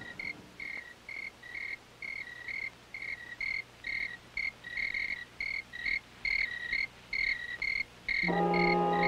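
Crickets chirping: short, high chirps repeating two or three times a second. About eight seconds in, low sustained music with several held notes comes in under them.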